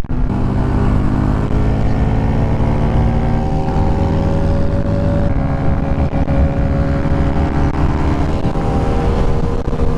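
Yamaha YZF-R125's 125 cc single-cylinder four-stroke engine pulling hard under acceleration, its pitch climbing for the first five seconds and then holding steadier, with heavy wind rush over the helmet microphone.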